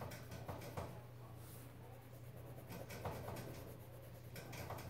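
Turquoise coloured pencil scratching on sketchbook paper as it fills in a drawn eye, in three short spells of strokes. A low steady hum runs underneath.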